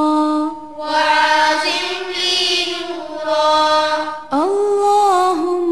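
A single voice chanting an Arabic supplication (dua) in long held notes that bend slowly in pitch. There are short pauses between phrases, about a second in and again about four seconds in.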